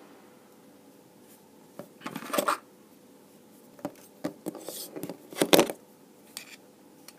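Handling sounds of a steel caliper and a stainless-steel e-cigarette mod on a tabletop: a scrape about two seconds in, then several separate metal clicks and knocks, the loudest about five and a half seconds in.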